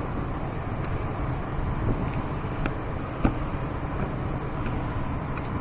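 Steady low rumble of wind on the microphone, with a few light clicks from handling the plastic engine-bay covers and their clips, the clearest about three seconds in.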